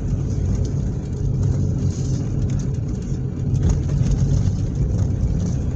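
Car running with a steady low rumble.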